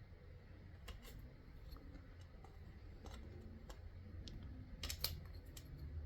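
Faint, irregular clicks and taps of clay-working tools and equipment being handled on a work desk, over a low steady hum.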